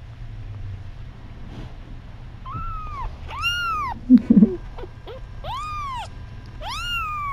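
Young kitten meowing four times, high-pitched calls that each rise and then fall, with a short louder low sound between the second and third.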